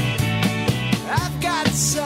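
Background music: a song with a steady drum beat, and a singing voice coming in about a second in.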